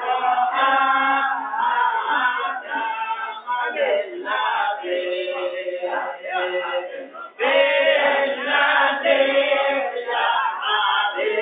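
A group of men singing a nasyid, an Islamic devotional song, together, with a short break about seven seconds in.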